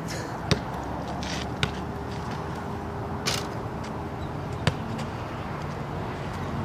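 A basketball bouncing on an asphalt court and knocking against the hoop: three sharp, separate knocks, the first and last loudest, with a couple of brief scuffs between them, over a steady low background rumble.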